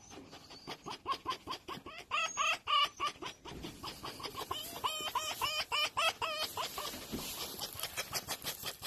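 Red fox chattering: runs of short, high, squeaky cackling calls, about five a second, coming in several bursts while it is petted. This is the excited, happy greeting sound often called a fox's "laugh".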